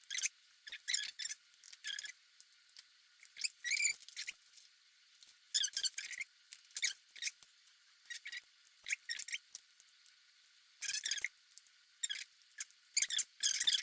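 Short, irregular crinkles and squeaks of small-object handling, as emptied Nespresso pods are filled with ground coffee and sealed with stick-on aluminium foil lids.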